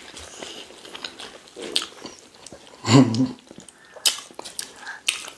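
Close-up eating sounds: chewing and lip smacks on rice, stew and meat, with scattered small clicks. About three seconds in, a short voiced sound cuts through, the loudest moment.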